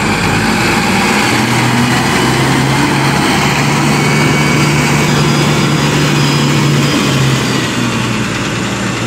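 Large diesel engine of a coal-loaded mining haul truck running steadily as the truck moves slowly past, a loud, even low hum that eases slightly near the end.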